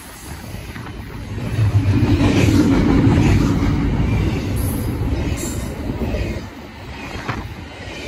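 BNSF double-stack intermodal container train rolling past: a steady rumble of steel wheels on the rails and cars in motion. It swells about a second and a half in and eases a little near the end.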